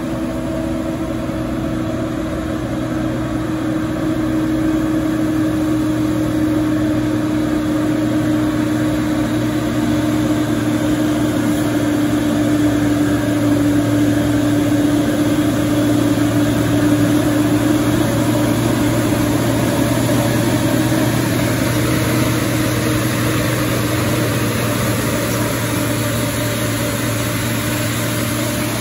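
Turbo-intercooled diesel engine of a UD Trucks dump truck running steadily at low revs, growing louder as the truck draws near.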